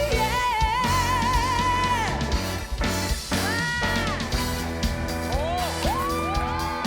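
Live pop-rock band music with a drum beat and electric guitar. A held, wavering note carries on for about the first two seconds, then gliding, bending melody lines follow as an instrumental passage between sung lines.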